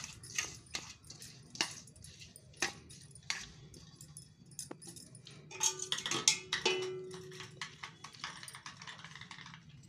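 Scattered clinks and taps of a spoon and colander against an aluminium cooking pot as rice is layered over chicken, with a short pitched sound about six seconds in.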